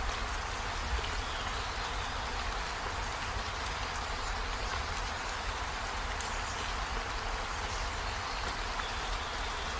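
Steady rain falling, an even hiss of drops with a soft knock about a second in.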